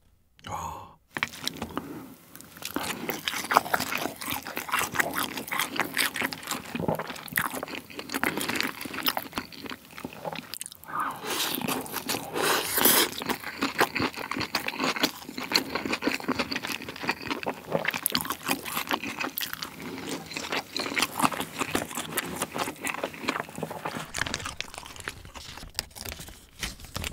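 Close-miked chewing of glazed, crisp-fried kkanpung chicken, with many irregular crunches and wet chewing. Near the end there is crinkling of a plastic sausage wrapper being torn open.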